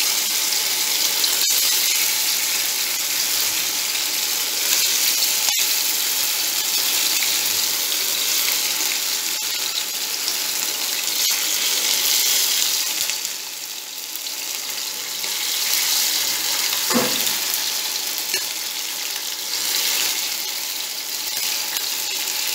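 Marinated chicken pieces frying in hot mustard oil in a nonstick pan: a steady sizzle as more pieces are laid in.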